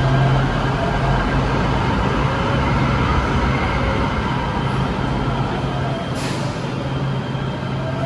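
LA Metro light rail train running with a steady low hum, a short hiss about six seconds in.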